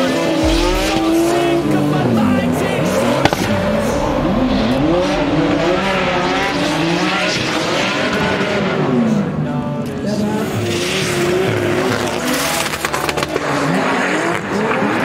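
Drift cars' engines revving hard and falling back over and over as they slide through a corner in tandem, more than one engine at once, with tyres squealing.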